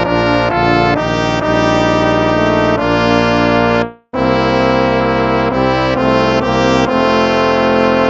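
Instrumental hymn played with sustained brass chords that change every half second or so, with a brief silent break about four seconds in.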